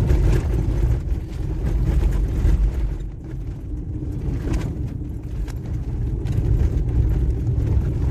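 A car driving on a road, heard from inside the cabin: a steady low engine and road rumble.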